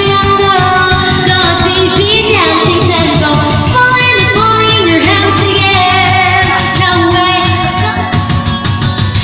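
Loud karaoke music: a backing track with a female voice singing over it, with a couple of falling pitch slides in the melody.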